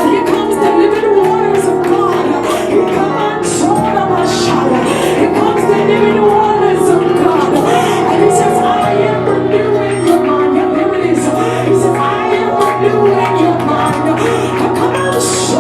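Church worship music: held keyboard chords with a bass note that shifts about nine seconds in, and voices singing over them.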